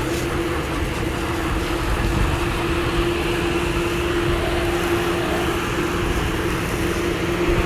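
Steady machine hum from a running rooftop air-conditioning unit, one even tone under a constant hiss and rumble.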